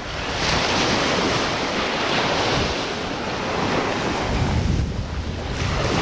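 Surf breaking on a sandy beach, a steady wash of noise that swells shortly after the start, with wind buffeting the microphone and adding a low rumble a little before the end.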